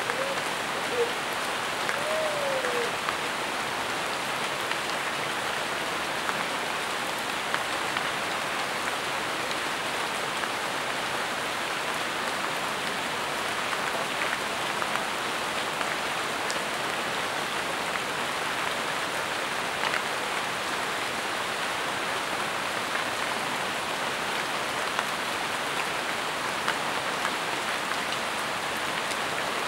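Steady rain falling on jungle foliage, with scattered louder single drops. In the first few seconds a short whistled call rises and falls twice.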